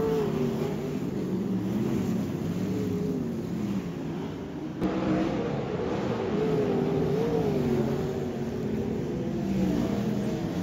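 Sprint car V8 engines racing around a dirt oval, the pitch rising and falling as the cars go through the turns, with an abrupt change about five seconds in.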